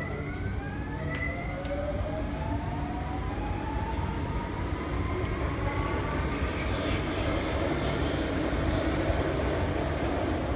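Renfe electric commuter train pulling away from the platform. Its traction motors give a whine of several tones rising steadily in pitch as it accelerates. From about six seconds in, a harsher hiss of wheels on rail takes over, with scattered clicks.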